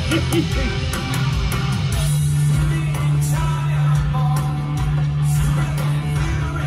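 Heavy rock band playing live, heard from the audience: distorted guitar, drums and cymbals, with a low bass note held steady from about two seconds in.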